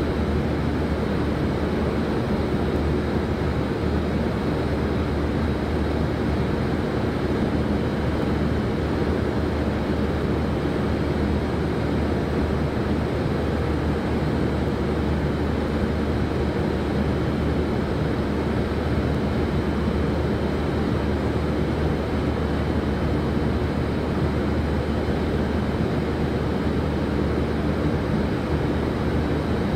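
Steady industrial drone of a car-body dip-painting line's machinery, an even rushing noise over a constant low hum.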